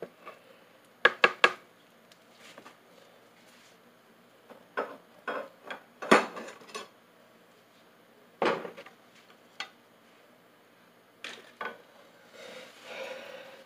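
Kitchenware clinking and clattering: a utensil knocks against a bowl and pan in a scattered series of sharp clinks, and a short stretch of soft noise comes near the end.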